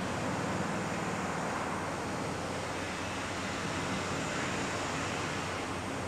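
Steady machinery noise with a low hum underneath, even and without a clear rhythm.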